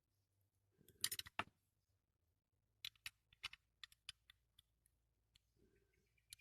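Light clicks and taps of small toy-car parts being handled and fitted together: a quick cluster about a second in, then a string of separate clicks.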